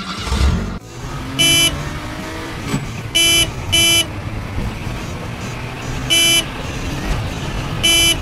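Cartoon car sound effect: a steady low engine rumble with five short car-horn beeps over it. The beeps come singly, then as a quick double, then singly again, the last one near the end.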